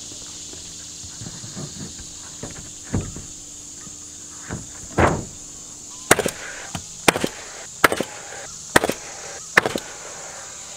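Nail gun fastening plywood roof decking: five sharp shots, roughly one a second, in the second half, after a few footsteps thudding on the plywood. A steady high insect drone runs underneath.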